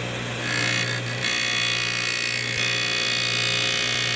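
Rush Model 132 drill grinder's wheel grinding the lip face of a drill, a lip-correction pass on the second side of the point. The motor hums steadily, and about half a second in a high grinding whine starts. It breaks off briefly around a second in, then runs on steadily.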